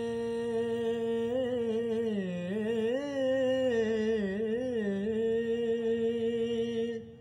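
A singer's voice holding one long note on the word 'mein' of a naat, sung without instruments; the pitch wavers through an ornament in the middle, then settles and stops near the end.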